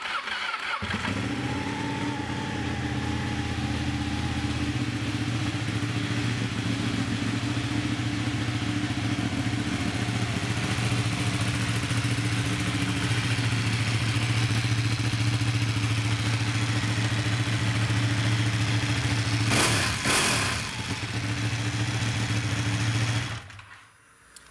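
Ducati 1199 Panigale's 1199cc L-twin engine starts and idles steadily, with one brief blip of revs about twenty seconds in, then is switched off shortly before the end.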